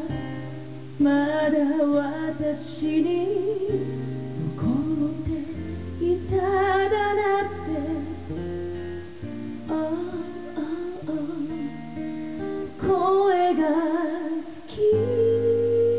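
Acoustic guitar strummed as accompaniment while a woman sings a slow song in phrases, ending on a long held note.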